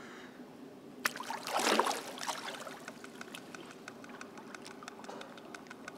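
Swimming-pool water splashing and dripping as a swimmer moves in the water, with a sharp click about a second in and a louder swell of splashing just before two seconds.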